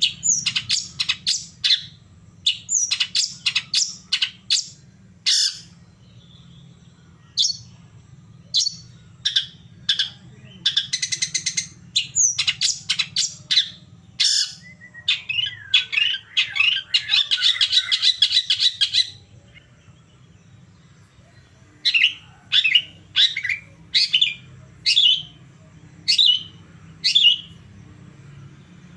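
Long-tailed shrike (cendet) in full song: a fast run of sharp chirps and downward-sweeping notes with harsh rattling trills, then a short pause. After the pause come spaced single calls. A faint steady low hum runs underneath.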